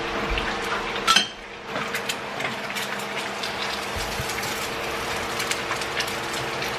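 Batter cooking on a hot breakfast appliance: steady fine crackling ticks over a constant hum, with a sharp clatter about a second in.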